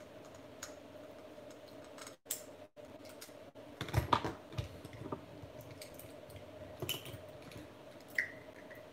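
Small, irregular plastic clicks and taps from a DCP Kenworth W900 model truck being handled as the screw holding its sleeper is backed out with a small screwdriver and the sleeper is worked loose from the frame.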